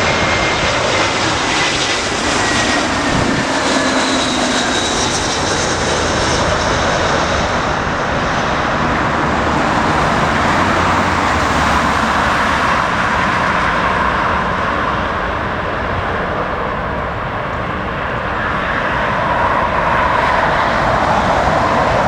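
Jet airliner engines running, a steady rushing roar with a high whine that slides down in pitch over the first few seconds.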